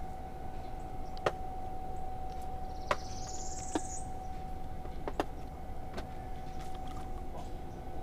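A steady electric motor whine with a few light clicks scattered through, and a short, high rising chirp about three seconds in.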